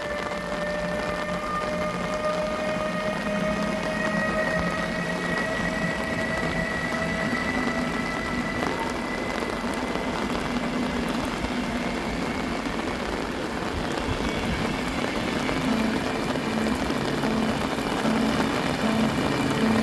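Steady rain with the whine of an electric train's motors, a few tones slowly rising in pitch as it picks up speed. A low hum grows louder in the second half.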